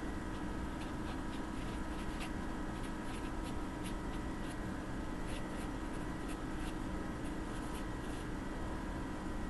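Marker pen writing on paper: short scratchy strokes in quick, irregular succession as words are written, over a steady low hum.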